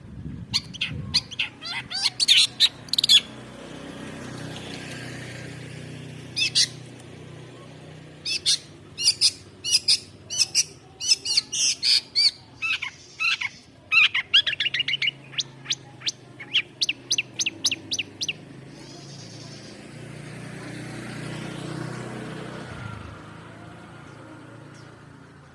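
Long-tailed shrike singing in fast runs of sharp, high chirping notes, in several bursts with pauses between, the longest lasting about ten seconds in the middle; it goes quiet for the last several seconds.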